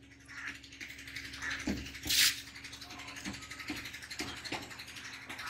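A whiteboard being wiped clean with a duster: faint scattered rubbing and knocks, with one short, louder hiss about two seconds in.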